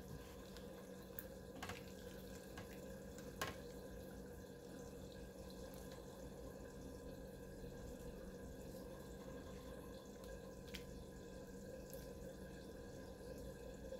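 Faint wet squishing of a hand kneading a paste of ground flaxseed and cold water in a ceramic bowl, with a few soft clicks, over a steady low hum.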